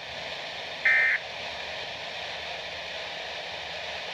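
Weather radio broadcast hiss with one short burst of SAME digital alert-code data tones, a warbling two-tone chirp near 2 kHz, about a second in. Its short length fits a SAME end-of-message code.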